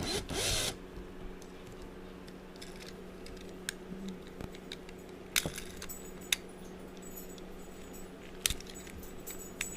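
Scattered light metallic clicks and scrapes of a metal tool prying at a die-cast toy car's body, a handful of sharp ticks a second or so apart, over a steady low hum.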